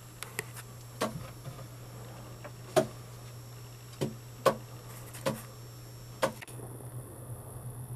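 Irregular sharp taps and clicks, about eight of them spaced unevenly, over a steady low hum.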